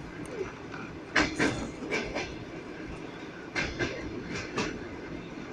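Train wheels clacking over rail joints in paired clicks (clickety-clack) above a steady rumble of the moving train.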